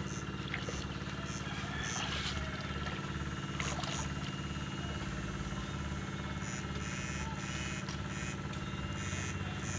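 Electric-fishing rig humming steadily, with a low buzz pulsing on and off about twice a second.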